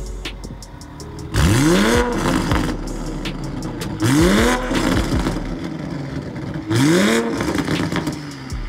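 Toyota GR Supra's turbocharged engine, fitted with a hi-flow catted downpipe and factory exhaust from the downpipe back, revved three times from idle. Each rev is a quick rise in pitch and a fall back, about two and a half seconds apart, with a loud rush of exhaust at each peak.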